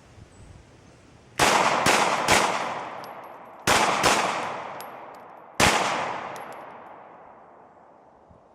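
Glock 19X 9mm pistol fired in three quick groups: three rapid shots, then two, then a single shot, each group trailing off in a long echo.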